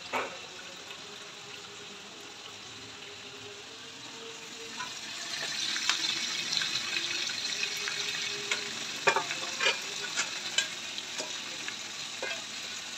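Boiled mutton and onions frying in oil in a pan, a steady sizzle that grows louder about five seconds in, during the browning stage. A spoon stirs, scraping and knocking against the pan a few times in the second half.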